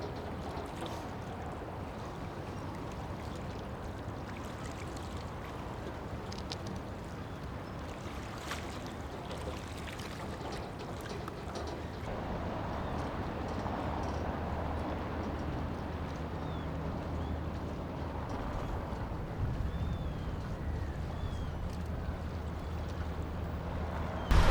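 Harbour ambience: a steady wash of water noise over the low hum of a boat's engine, which grows a little stronger near the end. A few faint, short, high chirps sound in the second half.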